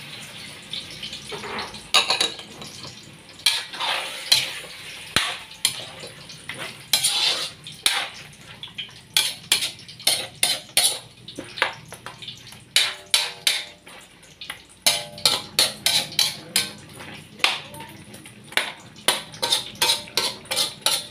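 Metal tongs scraping and clanking against a metal wok as chicken pieces are turned, a few strokes a second, some strikes leaving a brief ring. A soft frying hiss is heard in the first couple of seconds.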